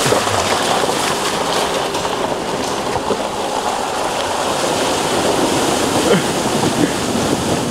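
Water rushing and splashing steadily as a car drives through a river crossing.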